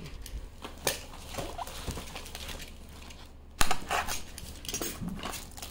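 Hands handling a cream box and its packaging: scattered light taps and rustles, with one sharp click a little past halfway.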